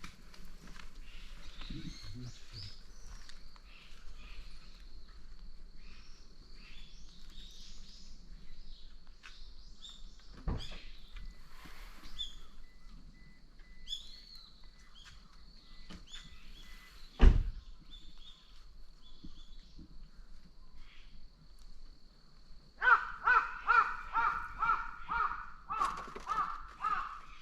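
Outdoor ambience with small birds chirping and a faint steady high tone, two sharp knocks midway, then near the end an animal calling in a quick run of about ten short, evenly spaced calls.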